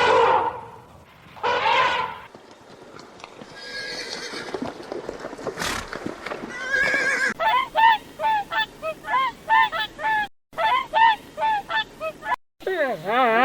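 A string of animal calls cut together from separate recordings. First come a couple of separate calls, then a noisy stretch, then about halfway through a run of short, repeated honking calls at about two a second, with abrupt cuts between clips.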